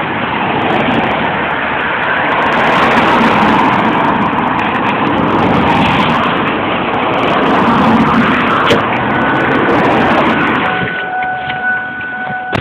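Loud rushing noise of heavy rain and traffic on a wet road, swelling and easing. Near the end a steady two-note electronic tone sounds, and the noise cuts off suddenly.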